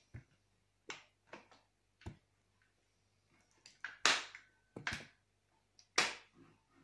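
Handling noise from a baby stroller's frame: a scattered series of sharp plastic and metal clicks and knocks with some fabric rustle, the loudest knocks about four and six seconds in.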